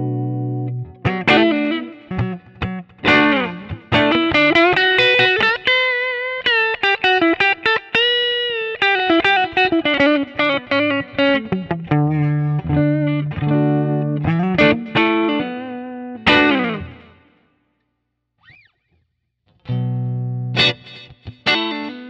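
Charvel San Dimas Style 1 electric guitar played through an amp: a ringing chord, then quick lead lines with notes gliding up and down in pitch. The playing stops for about two seconds near the end, then a new riff starts.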